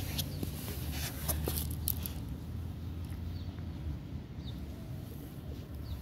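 A low steady rumble, with rustling and a few clicks in the first two seconds. A few faint, short bird chirps come through later.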